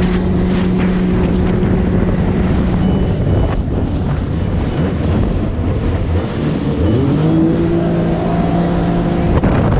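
Jet ski engine running at speed over the rush of wind and water. Its note fades about three seconds in, then climbs in pitch about seven seconds in as it accelerates again.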